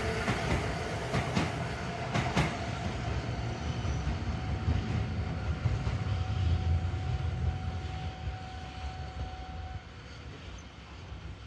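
Two-car Randen tram, Mobo 611 coupled with Mobo 631, running away along the track. Its wheels clack over the rail joints a few times in the first two or three seconds, and its low rumble fades as it recedes. A faint steady whine holds from about four seconds in until near the end.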